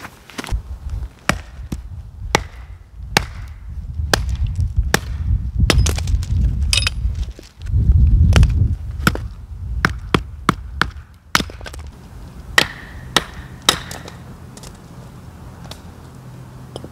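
Firewood being split into kindling with a blade: a run of sharp, irregular wooden knocks and cracks, about one or two a second.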